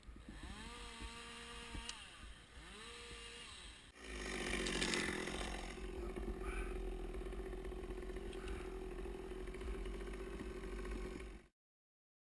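Stihl MS 200 T top-handle two-stroke chainsaw revving up and down twice, then held at high revs, louder and steady, for about seven seconds before the sound cuts off suddenly.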